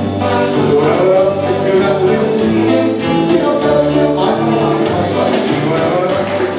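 Live band music: a man singing at the microphone over acoustic guitar, drums and keyboard, with a steady bass line and cymbal hits.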